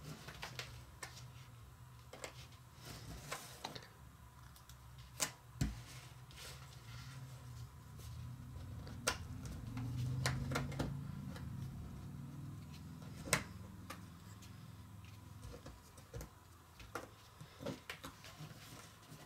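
Jigsaw puzzle pieces being handled, tapped and set down on a table: scattered light clicks and taps at an irregular pace, a few sharper ones standing out. A faint low hum swells briefly in the middle.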